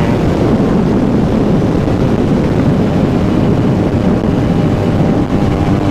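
Benelli TNT 300's parallel-twin engine running through an aftermarket exhaust, heard steadily while riding, mixed with wind rush on the microphone.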